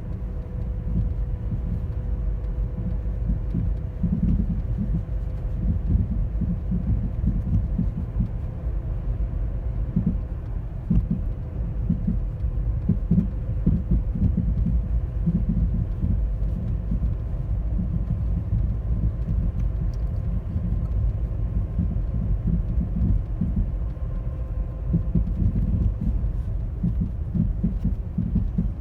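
A 2010 Toyota Corolla LE giving off a low rumbling, thumping, popping noise in uneven pulses, with a faint steady hum above it; the cause is unknown to the owner, who is asking for a diagnosis.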